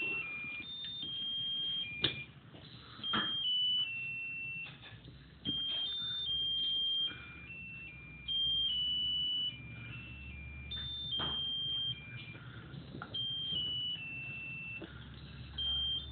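Musical lotus birthday candle's electronic sound chip playing a simple beeping tune of single high notes in repeating phrases. A few sharp clicks cut across it.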